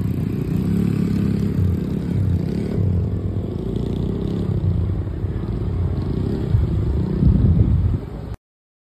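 Small four-stroke 50cc minibike engines running as riders pull away and ride off, a little louder near the end before the sound cuts off suddenly.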